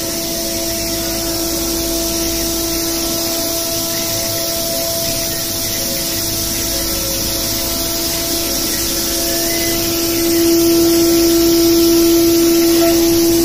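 CNC milling machine spindle turning at about 20,000 rpm while an insert end mill cuts a workpiece dry: a steady hiss with a steady hum tone. It gets louder about ten seconds in.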